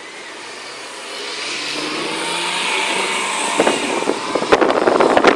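City bus engine running as the bus slides sideways through deep snow, under a rushing noise that grows steadily louder. A run of sharp crackling knocks follows from about three and a half seconds in.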